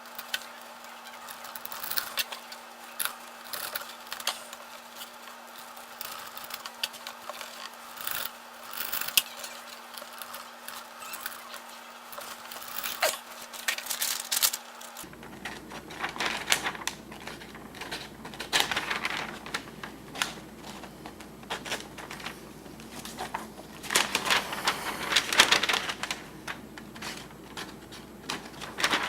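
Leatherman multitool knife blade sawing through strands in repeated short cuts, heard as irregular scrapes and clicks. Near the end of an edge-retention test the blade is dull enough that it barely grabs the material.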